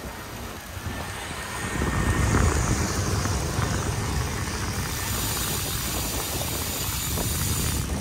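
Wind buffeting the microphone and tyres rolling on an asphalt path while riding; the rush gets louder about two seconds in.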